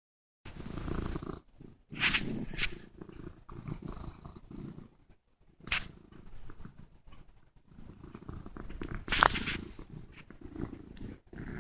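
Domestic cat purring right against the microphone, a low pulsing rumble. A few times, about two, six and nine seconds in, there are loud brushing, scraping noises as the cat shoves its face against the phone.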